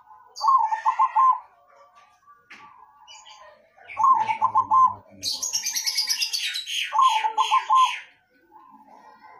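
Zebra dove (perkutut) singing three cooing phrases, each ending in a quick run of notes. A small bird chirps rapidly and high-pitched in the middle, about five chirps a second.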